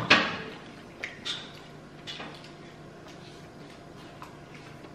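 Eating noises from bowls of hotpot noodles: one short slurp right at the start, then a few soft clicks of chopsticks and spoons against the bowls about one and two seconds in.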